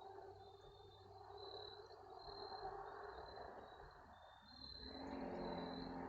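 Insects trilling in the woods, a high chirring that comes and goes in stretches. A rushing noise with a low hum under it grows louder about five seconds in.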